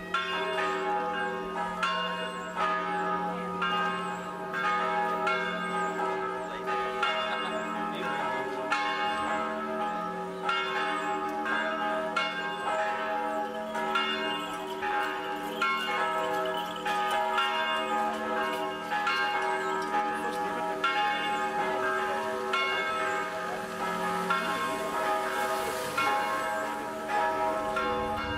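Church bells pealing, struck over and over in a steady rhythm, with their tones ringing on between strikes.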